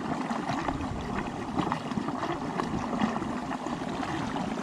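Water splashing and trickling as a large lift net is hauled up out of a pond, a steady noisy patter with many small irregular drips.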